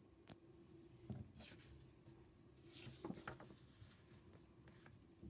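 Near silence: room tone with a faint steady hum, a few soft clicks and brief faint rustling.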